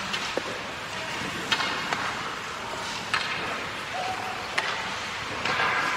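Ice hockey rink sounds: about five sharp knocks of sticks and pucks on the ice and boards, a second or more apart, over a steady hiss of skates and arena noise, with a longer scraping hiss near the end.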